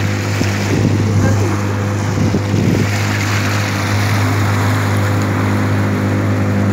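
Motorboat engine running steadily at speed, a constant hum, with water rushing past the hull and wind on the microphone.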